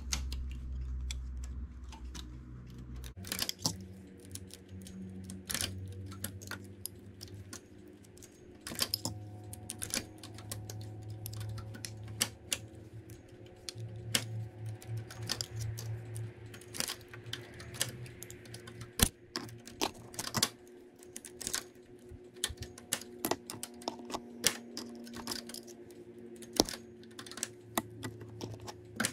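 Irregular light clicks of metal knitting-machine needles and a single-prong transfer tool as stitches are lifted off and crossed by hand on the needle bed to work a cable, over a faint steady hum.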